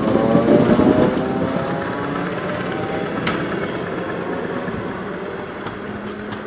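ER2R electric trainset pulling away. Its traction motors give a whine that rises in pitch over the first two seconds, over the rumble and clatter of the wheels on the rails as the last cars pass close. The sound then fades steadily as the train draws away.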